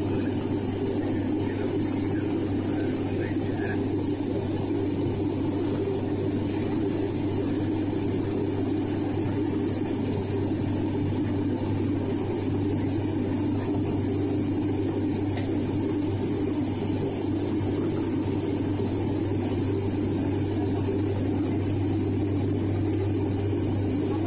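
Airliner cabin noise during the climb after takeoff: the steady drone of the jet engines and rushing air, with a constant low hum.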